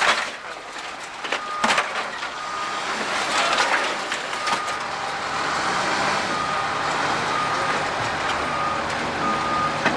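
Heavy demolition machine's diesel engine running while its backup alarm beeps steadily, about once a second, with wood and debris cracking and crunching a couple of times early on as the building is torn down.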